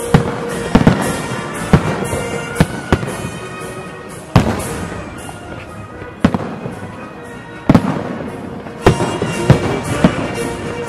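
Fireworks salute: aerial shells bursting in about a dozen sharp bangs at irregular intervals, over steady music.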